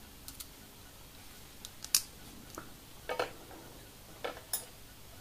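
Scattered light clicks and taps of small screws and frame pieces of a model kit being handled and fitted, about six in all, the sharpest about two seconds in.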